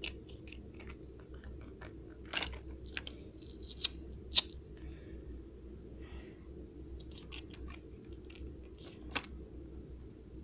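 Small plastic toy figures and playset being handled: scattered light clicks and taps, with two sharper clicks about four seconds in and another near the end, over a steady low hum.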